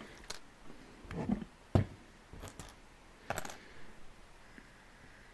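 Plastic LEGO bricks clicking and knocking as pieces are handled and pressed together: about half a dozen sharp clicks in the first three and a half seconds, the loudest a little under two seconds in, then quiet.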